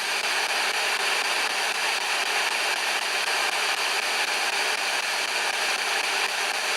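Steady hiss of radio static from a ghost box scanning through radio stations, with no voices or distinct fragments coming through.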